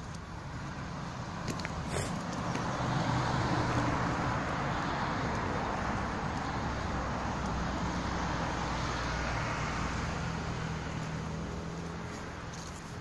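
Rumble of a passing motor vehicle, swelling over the first few seconds, holding, then fading away near the end.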